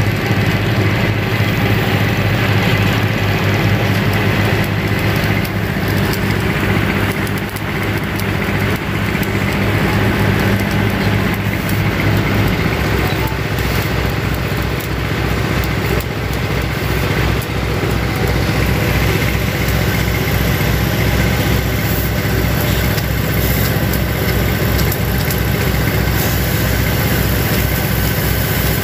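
Backhoe loader's diesel engine idling steadily close by, with an even low pulsing. About twelve seconds in, its note settles lower.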